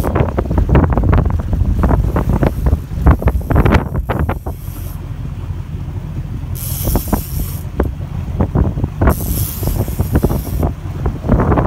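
Wind buffeting the microphone on an open boat, with irregular knocks and rattles, several in quick clusters in the first four seconds, and a few hissy gusts later on.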